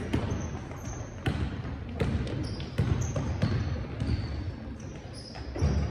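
Basketball bouncing on a sports-hall floor during play: several thuds at irregular intervals.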